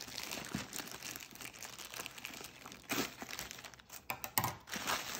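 Clear plastic wrap around a rolled canvas crinkling and crackling as it is handled, with a few sharper crackles about three seconds in and again between four and five seconds in.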